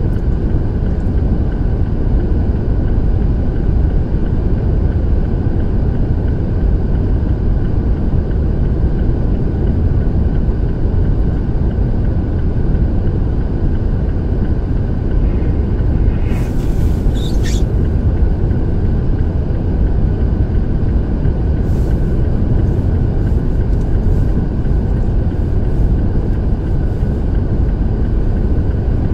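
Steady low rumble of a stopped vehicle idling, with traffic passing through the intersection; a brief high squeal a little past halfway.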